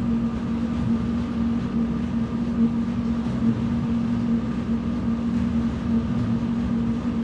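Treadmill motor and belt running steadily at about 4.2 mph with a constant hum, under the brisk footfalls of a walker on the belt.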